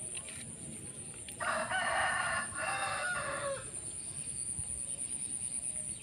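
A rooster crowing once, about two seconds long, its last note falling in pitch.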